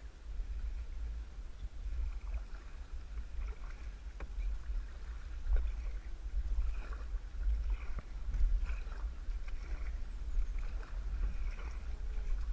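Kayak paddle strokes, the blades dipping and splashing in the water about once a second, over a steady low rumble.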